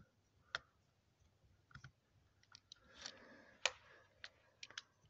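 Small screwdriver working a screw out of the plastic base of a die-cast model truck: a scatter of faint clicks and a brief scrape, with one sharper click about three and a half seconds in.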